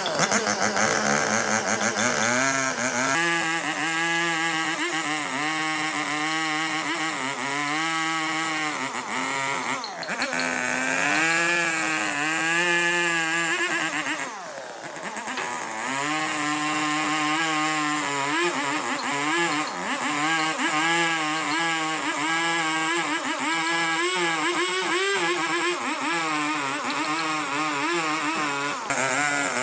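A power tool's motor running under load on wood, its pitch dipping and recovering every second or two as it bites in and eases off, with a brief drop about halfway through.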